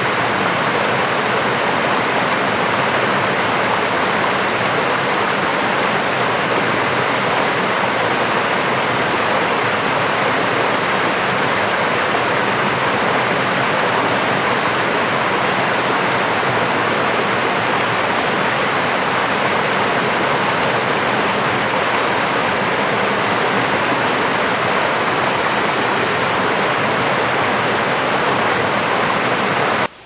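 Shallow mountain stream rushing over rocks, heard close: a loud, steady, unbroken water noise.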